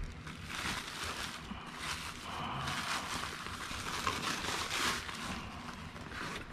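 Plastic courier pouch crinkling and rustling irregularly as it is opened by hand and a small cardboard box is pulled out of it.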